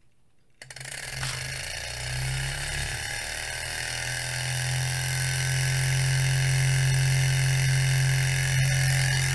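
Hot-air Stirling engine being spun up by a small belt-driven DC motor used as an electric starter. The whirring starts about half a second in and rises in pitch as the engine speeds up and catches, then settles into fast, steady running: the engine has fully started under electric power.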